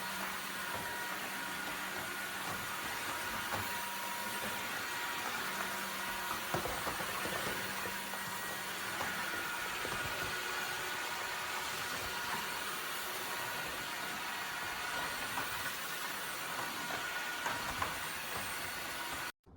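Dreame H12S cordless wet-dry vacuum mop running steadily in auto mode: an even hiss of suction with a steady motor whine. It cuts off suddenly near the end.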